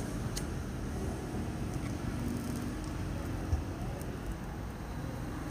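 Steady road traffic in the background, with a few light clicks and one knock a little past halfway as a BMX handlebar is handled and set in its stem clamp.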